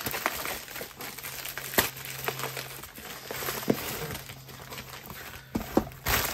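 Packaging being handled out of view: crinkling and rustling, with scattered sharp clicks and taps.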